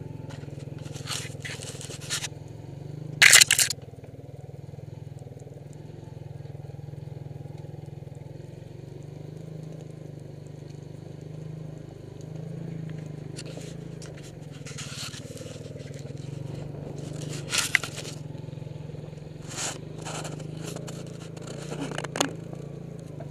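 A small engine runs steadily on the move along a forest trail, under brief bursts of brush and twigs scraping and crackling. The loudest scrape comes about three seconds in, and more come in clusters later on.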